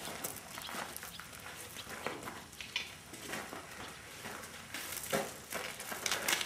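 Irregular crunching of footsteps and donkey hooves on a gravel driveway, with a couple of louder scuffs near the end.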